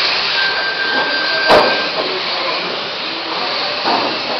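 A pack of electric RC mini touring cars racing just after the start, a steady hiss of motors, gears and tyres with a thin whine in the first second or so. A single sharp knock about one and a half seconds in.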